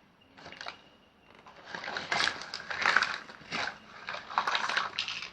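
Plastic toys being rummaged through and handled, an irregular run of rustling, clicking and clattering that is busiest in the second half.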